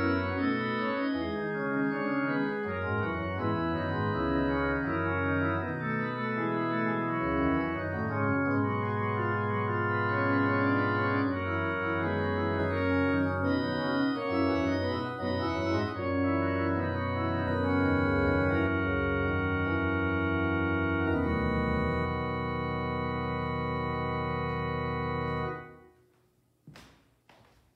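Organ playing slow music in held chords, ending on a long sustained final chord that cuts off sharply a couple of seconds before the end, followed by a few faint knocks.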